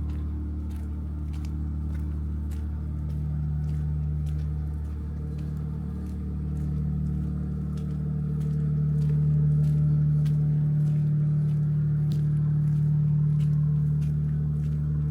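A steady low engine hum holds the same pitch throughout, swelling slightly about two-thirds of the way in, with faint sharp clicks scattered over it.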